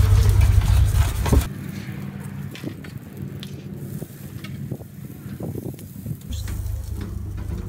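Ears of corn sizzling faintly on the hot grates of a charcoal grill, with light clicks of metal tongs against the grate as the ears are set down and arranged. A low rumble fills the first second and a half, ends in a knock, and comes back about six seconds in.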